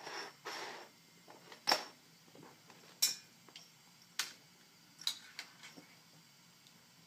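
Sharp metallic clinks and taps, roughly one a second, as a Bengal kitten knocks a cat collar against stainless-steel pet bowls on their wire stand. A brief rustle comes at the start.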